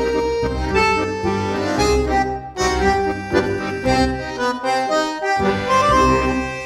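Background music led by accordion: a lilting instrumental tune over a steady bass.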